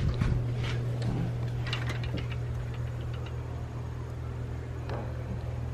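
Steady low mechanical hum, with faint outdoor background noise.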